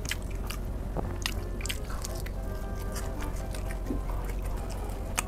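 Close-miked chewing of spicy sauce-coated fried chicken, with scattered sharp crunches, over background music.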